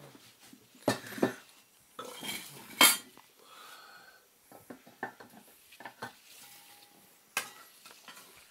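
Dishes and cutlery being handled on a table: a string of knocks and clinks, the loudest about three seconds in, then lighter ticks.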